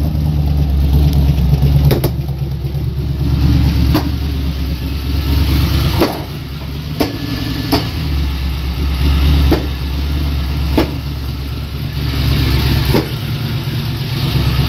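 Chevrolet Camaro Z28 V8 engine running through a freshly fitted aftermarket exhaust with 2.5-inch pipes and loud mufflers, a deep steady exhaust sound that rises and falls in level, with sharp cracks every second or two.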